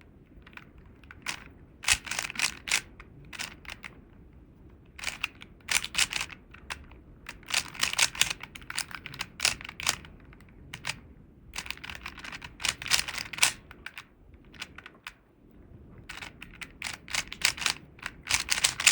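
Rubik's Cube being turned by hand: quick runs of plastic clicks and clacks as the layers snap round, in bursts of about a second with short pauses between them.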